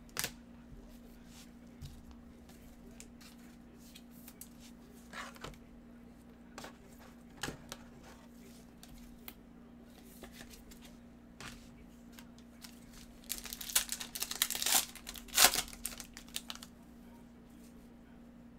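Plastic trading-card pack wrapper and card sleeves crinkling and tearing as cards are handled, with scattered light clicks. A louder run of crinkling comes about three-quarters of the way through, over a steady low hum.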